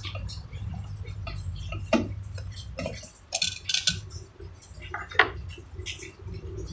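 Scattered small metal clicks and clinks as the parts of a door lock are handled and fitted back together, over a steady low hum.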